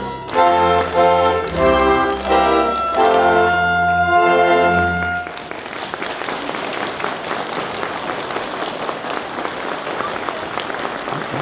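Children singing a song with instrumental accompaniment, ending on a held final chord about five seconds in. Audience applause follows and carries on steadily.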